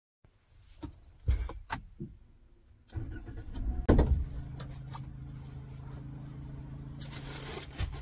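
A few knocks and clicks, then a car engine starting about three to four seconds in with a brief loud surge, and settling into a steady idle.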